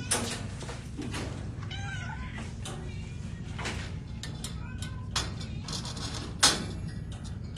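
Cats in shelter cages meowing, several short faint meows, with a few sharp knocks; the loudest knock comes near the end. A steady low hum runs underneath.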